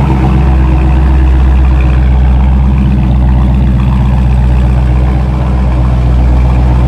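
Dodge Charger Scat Pack's 6.4-litre (392) HEMI V8 idling steadily just after a warm start, through a muffler-deleted exhaust that keeps the factory resonators. It is a loud, slightly choppy idle that sounds like it kind of has a cam.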